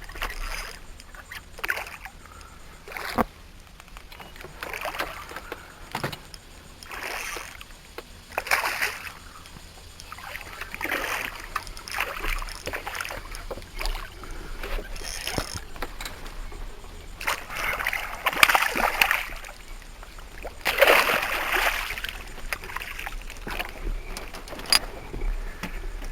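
Water splashing in irregular bursts beside a small skiff, with a few sharp knocks, as a hooked redfish is fought and brought to the boat. The biggest splashes come about two-thirds of the way through.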